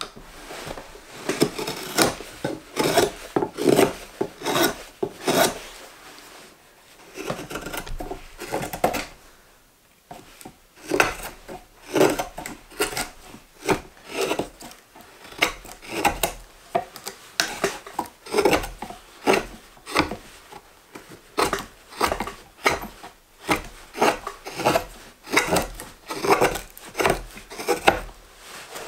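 A hook knife cutting across the grain of green maple as the bowl of a spoon is hollowed: a run of short, crisp slicing scrapes, about one to two cuts a second, with a brief pause partway through.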